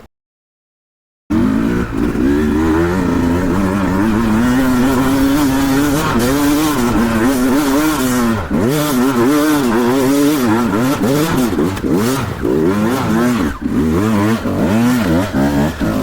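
Beta 200 single-cylinder two-stroke dirt bike engine, being ridden hard, starts about a second in. The revs rise and fall over and over with the throttle and gear changes, as the freshly replaced clutch is tested.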